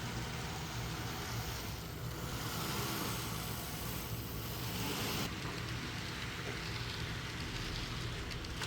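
Model train running along the layout track, a steady low hum under an even rushing noise.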